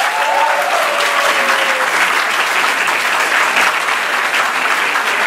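An auditorium audience applauding steadily, many hands clapping at once.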